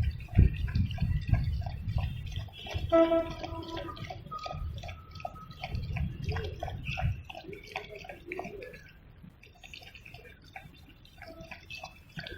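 A dog lapping up milk: a quick, regular run of wet laps at about three a second. A low rumble runs under the first seven seconds.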